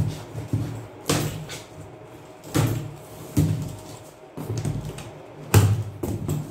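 Cardboard shipping box being opened: packing tape slit with a small blade and the flaps pulled open, giving a series of irregular thuds and scrapes of cardboard, the loudest about five and a half seconds in.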